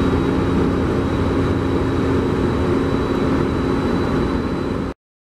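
Two Metrolink EMD F59PH-family diesel locomotives idling side by side: a steady diesel rumble with a constant hum and a faint high whine. It cuts off abruptly near the end.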